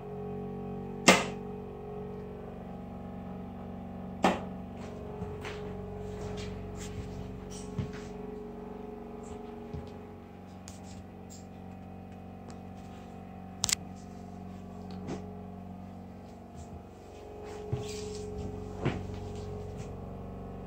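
A steady low hum with several sharp knocks, about a second in, near four seconds, near fourteen seconds and again near nineteen seconds, and lighter clicks and taps between them, as someone moves about inside a small wood-panelled caboose.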